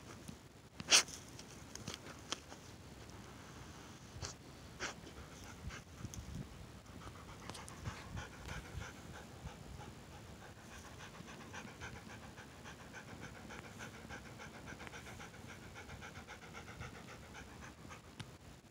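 Rapid, even panting close to the microphone, starting about seven seconds in, after a single sharp click about a second in and a few softer clicks.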